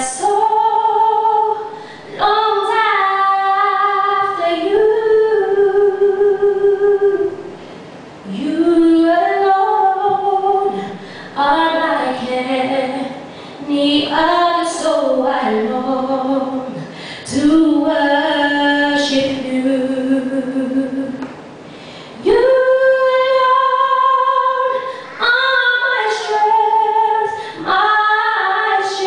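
A woman singing solo a cappella into a handheld microphone, in long held phrases with short breaths between them.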